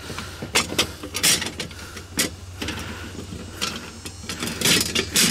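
Thin sheet-metal panels of a vintage Sterno No. 33 folding cook stove clicking, tapping and clattering as they are handled and fitted together, in a scatter of sharp knocks.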